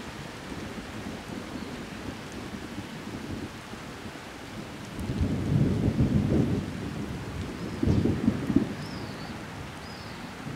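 Thunder rumbling in two rolls, one about five seconds in and a shorter one near eight seconds, over a steady hiss of rain. A bird chirps faintly a few times near the end.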